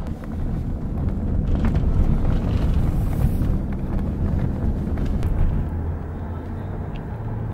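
Steady low road rumble and engine noise of a car driving, heard from inside the cabin, a little louder through the middle.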